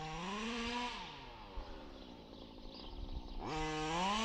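Zenoah G320 32cc two-stroke engine of a KM Baja 2-speed RC car, exhausting through a silenced side pipe, revving up and easing back off, then revving up again near the end.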